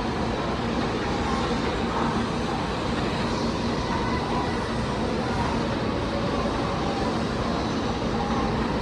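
Steady hum and rumble of an N700A Shinkansen train around its departure from the platform, with no distinct separate events.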